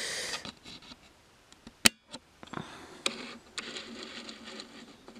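Handling noise: one sharp click about two seconds in, then a stretch of rustling and light scraping with a few smaller clicks.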